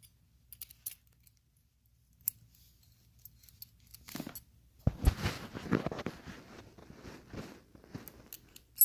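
Small metal clicks and rattles of door latch hardware being handled and fitted, with a thump about five seconds in followed by a few seconds of busy clicking and rubbing, and a sharp click near the end.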